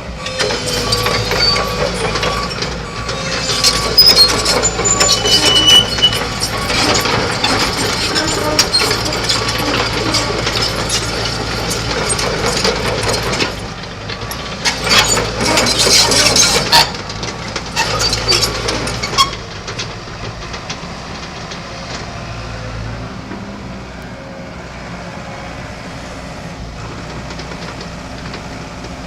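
Komatsu PC138US-2 excavator running, its diesel engine holding a steady drone under many irregular clanks and knocks for the first two-thirds; after that the engine runs on more quietly and evenly.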